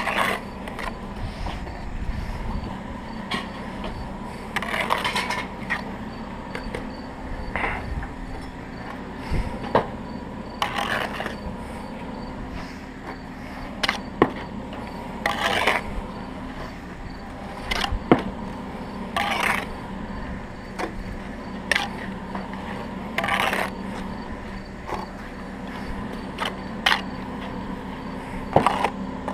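Steel trowel scraping and spreading mortar along the top of a brick course in short strokes every few seconds, with sharp clicks and knocks of bricks being set into the mortar. A steady low hum runs underneath.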